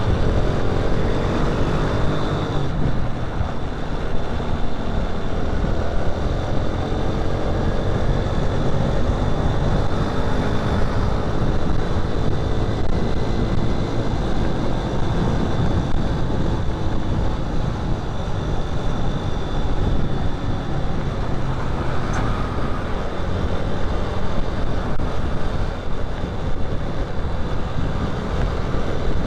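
Riding a motorcycle in road traffic: the bike's engine runs, its note shifting in pitch over the first dozen seconds, under a heavy, uneven rumble of wind on the microphone, with other vehicles around.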